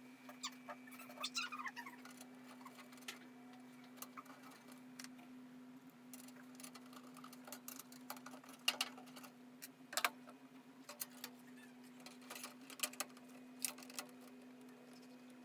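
Scattered light clicks, taps and small knocks of PC parts and screws being handled while a motherboard is fitted into a computer case, over a steady low hum.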